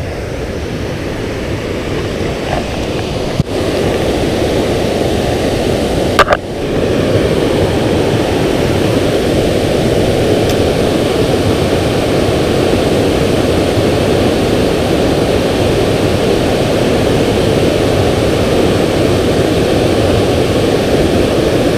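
Steady rush of water pouring over a low-head dam spillway, growing louder about six seconds in. Two brief sharp knocks stand out before the rush grows louder.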